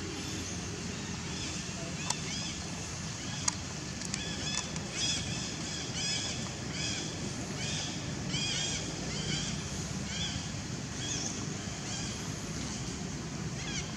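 Repeated short, high chirping calls, coming in quick bouts, over a steady low rumble; two sharp clicks about two and three and a half seconds in.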